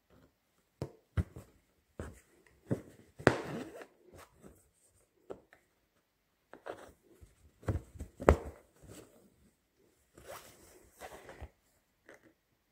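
Embroidery thread pulled through taut fabric stretched in an embroidery hoop: irregular short rasps as the needle passes and the thread is drawn out, two of them longer, about three seconds in and near ten seconds, with a few sharp ticks between.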